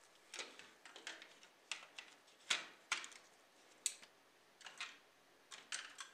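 Hard plastic parts of a die-cast model car clicking and knocking as the interior and chassis are fitted together and the body is set on. The knocks are faint and irregular, with the loudest pair about two and a half and three seconds in.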